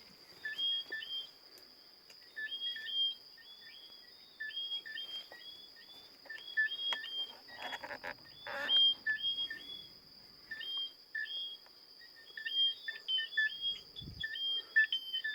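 Chorus of whistling frogs calling, several overlapping: each call is a short low chirp followed by a higher rising whistle, repeated over and over above a steady high-pitched drone. A brief rustle comes about eight seconds in.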